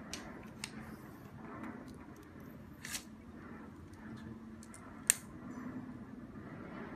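Aluminium trekking pole being handled and adjusted, giving light plastic-and-metal clicks. There is a louder click near three seconds, and a sharp snap about five seconds in as the pole's quick-lock clamp is closed on a section joint.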